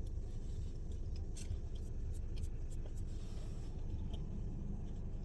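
A person chewing a bite of fried chicken tender, with faint scattered clicks over a steady low rumble.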